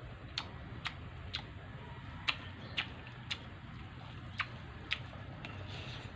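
Mouth smacks of a person chewing food: about eight sharp clicks in short runs, often half a second apart, over a low steady hum.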